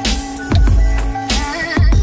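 Background music with a strong, recurring bass beat under held synth-like notes.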